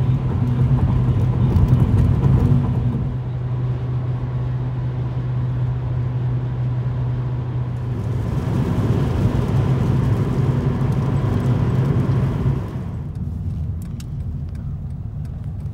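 Car cabin noise at highway speed: steady road and tyre noise with a low engine hum. About thirteen seconds in it drops to a quieter, slower drive.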